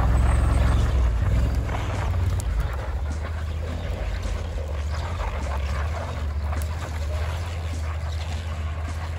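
Argo 8x8 amphibious ATV engine running steadily as the tracked machine drives along the trail, a little louder in the first two seconds. Light crackling and clicking from the tracks and brush sits over the engine hum.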